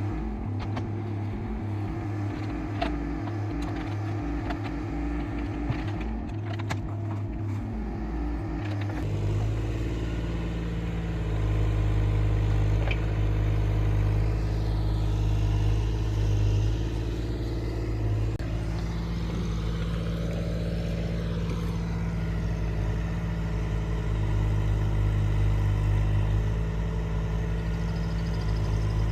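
Excavator's diesel engine running steadily. Its note changes about nine seconds in, and it grows louder for two stretches.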